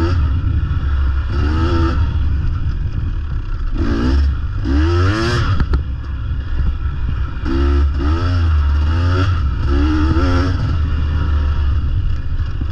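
2023 KTM 250 XC two-stroke dirt bike engine being ridden hard, revving up and letting off again and again, its pitch sweeping up with each burst of throttle, over a steady low rumble.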